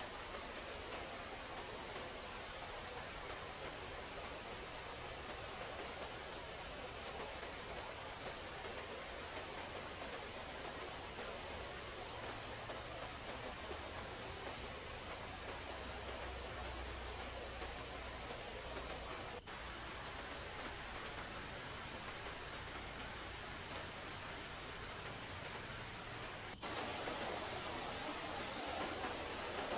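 Forest ambience dominated by an insect's steady, high pulsing trill over a soft background hiss. Near the end there is a brief gap and the background becomes slightly louder.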